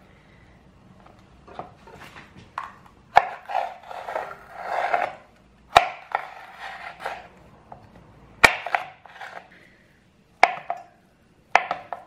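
Chef's knife slicing a green pepper on a cutting board: crisp crunching cuts through the flesh, with several sharp knocks of the blade against the board.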